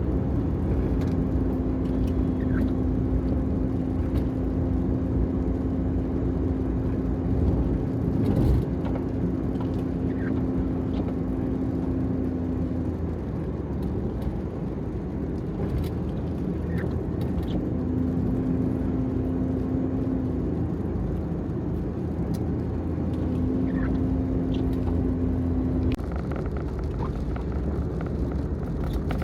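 Steady road and engine noise of a small van being driven, a low rumble with a droning hum that comes and goes. A few faint short chirps sound over it.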